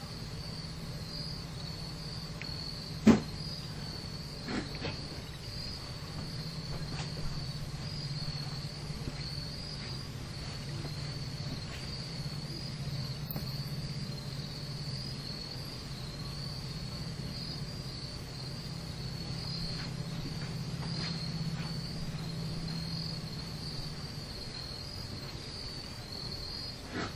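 A steady, high insect chorus with a slight pulse, over a low steady hum, with a sharp click about three seconds in.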